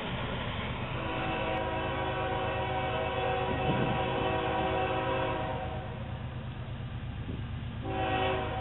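Approaching train's locomotive air horn sounding several notes at once: one long blast, then a shorter one starting near the end. A steady low rumble of the train runs underneath.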